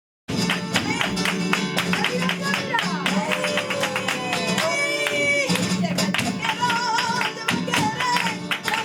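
Flamenco bulería played live: a guitar strummed in a fast rhythm with dense, sharp percussive strokes, and a voice singing over it. The music starts abruptly just after the beginning.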